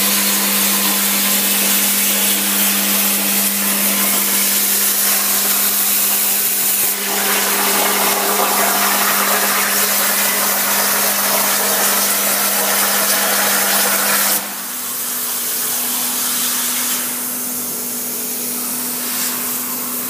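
CNC plasma cutter's arc cutting 2 mm mild steel sheet: a loud, steady hiss over a low hum, with a brief break about seven seconds in. About fourteen seconds in the arc cuts off, leaving a quieter steady hiss and hum.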